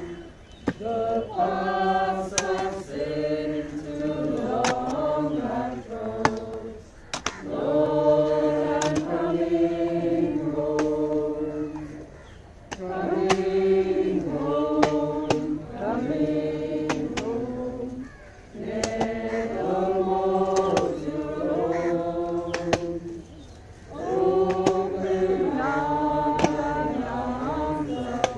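A group of mourners singing a hymn together at a graveside, in long held phrases with short pauses between them. Sharp knocks are heard now and then from a hoe-shovel working earth back into the grave.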